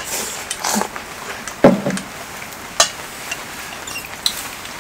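Steady rain hiss, with a few sharp clicks and eating noises from people eating ramen.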